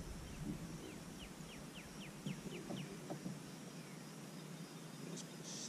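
A bird calling in a quick series of about eight short, high, falling notes, about three a second, which stop about three seconds in.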